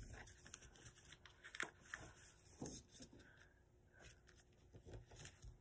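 Faint rustling and soft crinkles of a sheet of paper being folded and creased by hand, with a few scattered small ticks.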